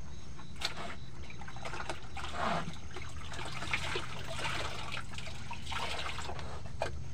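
Water splashing and trickling in a plastic bucket as a cloth is dipped in and squeezed out, in several irregular bouts.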